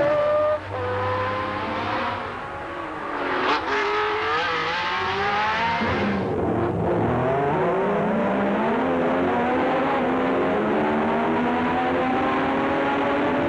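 Formula One racing car engine at high revs, heard from on board. The revs drop sharply and pick up again twice, around three and a half and six seconds in, then climb steadily through the rest.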